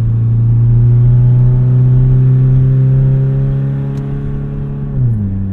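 XV20 Toyota Camry's engine pulling hard through a broken-off, open exhaust, its loud note rising slowly in pitch, then dropping sharply about five seconds in.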